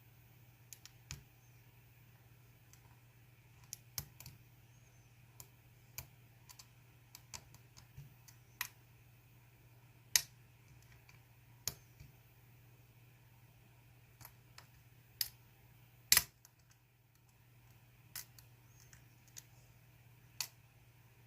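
A GEGE six-pin euro cylinder being single-pin picked: scattered sharp clicks at irregular intervals from the pick and pins, two of them louder, about halfway and about three-quarters of the way through.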